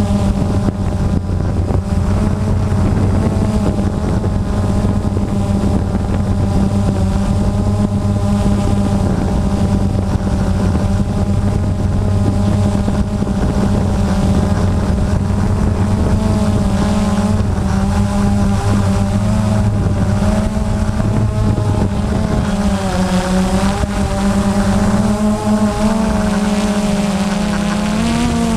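Camera drone's motors and propellers heard from its onboard camera: a steady buzzing whine whose higher pitches waver, shifting more noticeably near the end as the drone manoeuvres.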